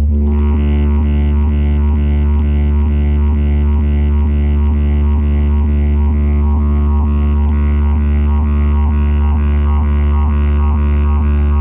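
Bass-heavy DJ music played loud through a large outdoor box speaker stack: a deep, continuous bass drone under a quick, evenly repeating pulsing rhythm.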